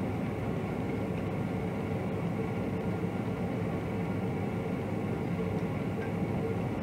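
A steady mechanical hum with a faint whine in it, even throughout.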